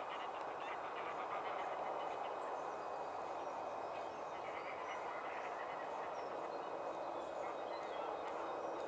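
Outdoor wetland ambience: a steady rushing background noise with faint, scattered waterfowl and small bird calls.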